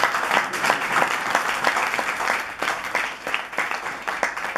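Audience applauding at the end of a song, the clapping easing off slightly toward the end.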